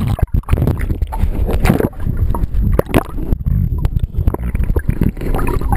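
Water sloshing and gurgling around a waterproof camera held under and just at the surface of a lake, with many irregular short knocks from the water and handling against the housing.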